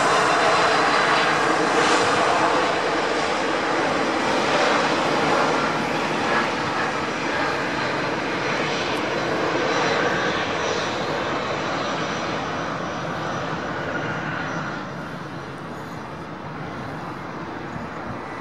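Boeing 767-300ER's twin jet engines during the landing roll-out: a loud rushing noise with a steady hum underneath, slowly fading over the second half as the airliner slows down the runway.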